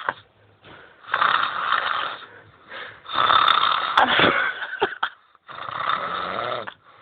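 A man snoring in his sleep: three loud snores, each about a second long and about two seconds apart.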